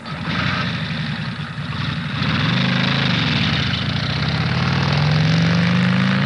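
Car engine running, its pitch dipping about three seconds in and then rising slowly toward the end, over a steady hiss.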